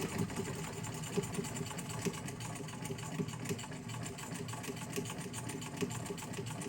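Sewing machine running steadily at a fast stitching pace, its needle strokes in a rapid, even rhythm.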